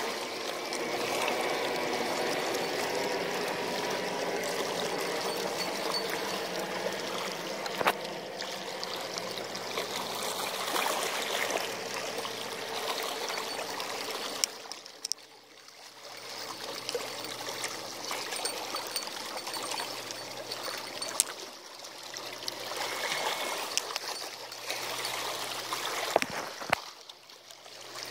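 Seawater sloshing and trickling among the rocks of a seawall, swelling and easing with each wave. A few sharp clicks stand out.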